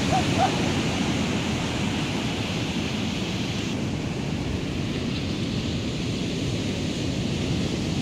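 Ocean surf breaking along the shore, heard as a steady rush mixed with wind buffeting the microphone; the higher hiss eases a little about four seconds in.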